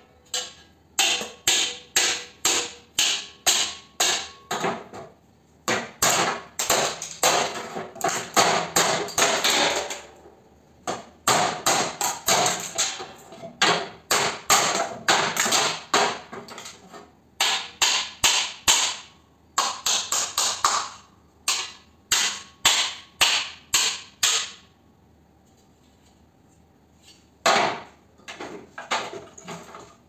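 A hammer striking the metal fan and motor bracket of a scrapped air conditioner, about two sharp blows a second in several runs with short pauses. It goes quiet for a few seconds, then comes one more blow and some lighter metallic clinks near the end.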